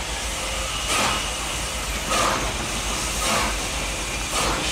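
Southern Pacific GS-4 4-8-4 steam locomotive No. 4449 working slowly, its exhaust chuffing about once a second, four beats in all, over a steady hiss of steam.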